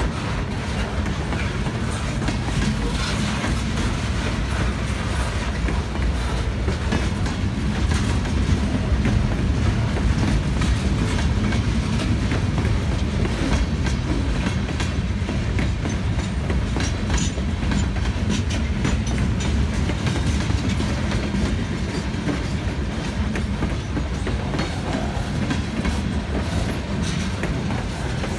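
Freight train cars rolling past over a grade crossing: a steady low rumble of wheels on rail, with frequent clicking and clacking as the wheels pass over the rail joints and crossing.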